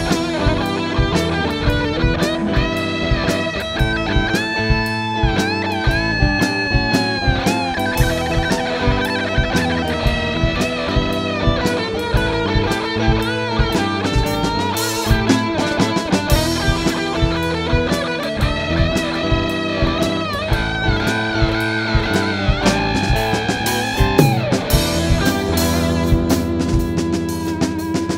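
Rock band playing: electric guitar lead with held notes that bend in pitch, over bass and a drum kit.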